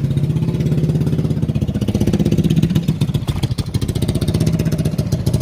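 Small engine of a home-built mini bike running steadily at idle, its rapid firing pulses holding an even pitch.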